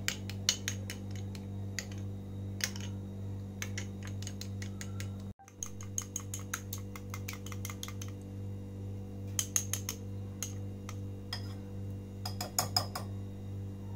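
Spoon and then a wire whisk clicking against a small glass bowl as a raw egg is beaten, in quick runs of light taps, over a steady low hum.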